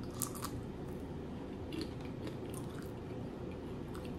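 Biting into and chewing a cream cheese wonton, with a few short crunches scattered through.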